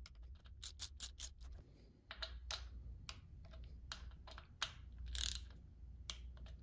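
Ratchet wrench clicking on a bolt head on a motorcycle engine's cam plate. A quick run of even clicks comes in the first second or so, then a few separate clicks and short runs as the bolts are snugged down.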